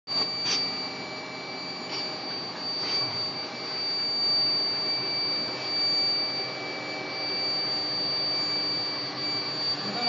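125 kW induction melting furnace running: a steady high-pitched whine over a constant machine hum, with a few faint brief chirps in the first three seconds.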